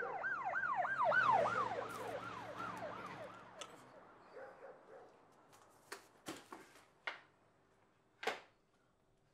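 Emergency-vehicle siren in a fast cycle, each sweep falling in pitch about three times a second, fading away over the first few seconds. After it come a few short sharp knocks and clicks, the loudest near the end.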